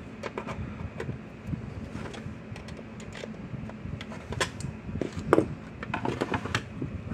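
Small clicks, taps and scrapes of needle-nose pliers and a screwdriver working the nuts on the control shafts of a red plastic fence charger housing, with the plastic case being handled. There is one louder knock a little past five seconds in.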